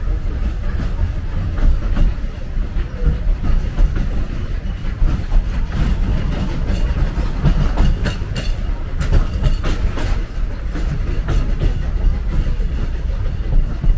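Disneyland Railroad steam train rolling along the track, heard from aboard: a steady low rumble with irregular clicks and clacks from the wheels over the rails.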